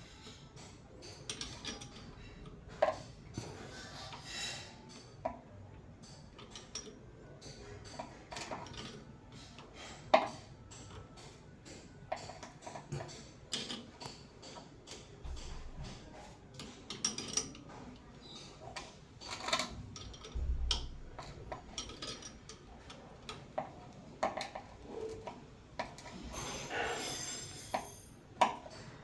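Metal parts and hand tools clinking and tapping against each other in scattered, irregular knocks as a shower valve cartridge and its fittings are put back together.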